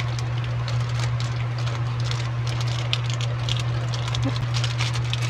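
Clear plastic packaging crinkling and rustling as it is handled, in dense irregular crackles, over a steady low hum.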